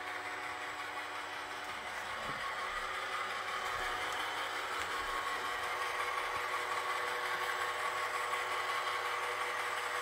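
An iRobot Roomba i7 robot vacuum running on carpet: a steady motor hum with a few held tones, a little louder from about three seconds in. The blue light shows it is returning to its charging dock.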